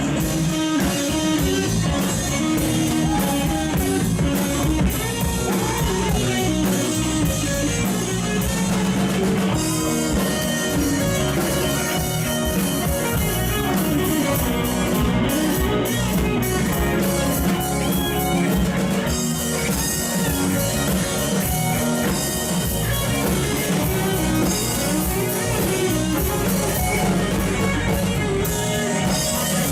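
Live rock band playing an instrumental passage, guitar over bass and drums.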